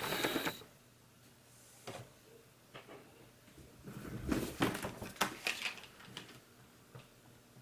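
Scattered knocks, clicks and rustles of hands handling gear at a workbench. They are loudest right at the start and again in a cluster between about four and six seconds in. The new laptop fan makes no running sound.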